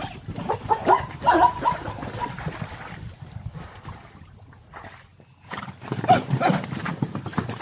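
Zebra calls: bouts of short, pitched barking calls, one about a second in and another around six seconds in.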